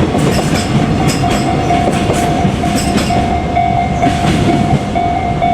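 Container freight train rolling past close by, its wheels clicking over rail joints, with a steady pitched tone running underneath.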